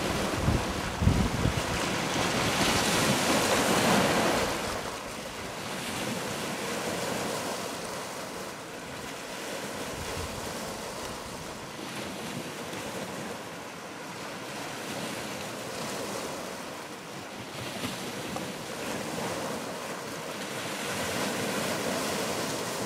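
Wind and surf: a steady wash of sea noise with wind buffeting the microphone, gusting hardest in the first few seconds.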